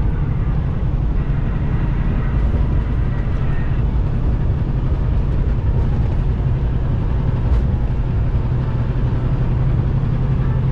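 Steady low rumble of a semi truck's diesel engine and road noise, heard from inside the cab while driving.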